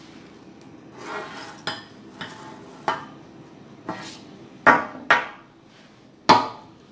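Crockery set down on a glass tabletop: a china cup, saucer and bowl clink and knock about eight times, then a glass coffee carafe comes down with one of the sharpest knocks near the end.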